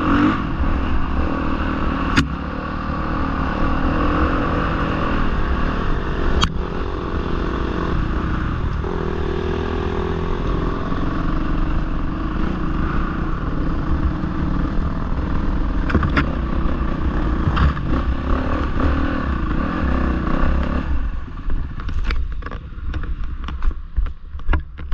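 Dirt bike engine running as it rides a rough forest trail, with clatter and a few sharp knocks from the bike bouncing over stones and ruts. Near the end the engine drops to a low, uneven chug.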